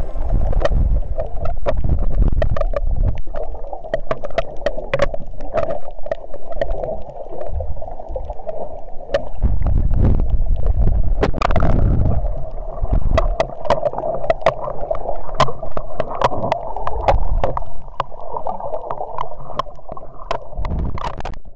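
Underwater sound through an action camera's microphone while snorkeling: muffled rushing and gurgling of moving water with a low rumble, dotted with many sharp clicks. It cuts off suddenly at the end.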